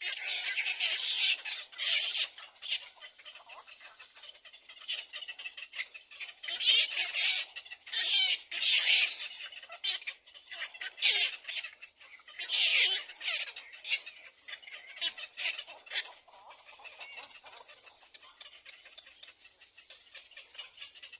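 Nestling birds giving rapid, high-pitched begging calls in loud bouts every few seconds, falling to faint calling over the last few seconds.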